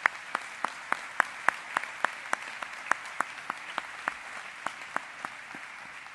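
Audience applauding, with one person clapping close by: loud, distinct claps about three a second standing out over the crowd, stopping near the end.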